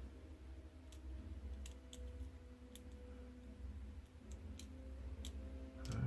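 Light, sharp clicks of small parts and tools being handled, about one every second, over a low steady hum.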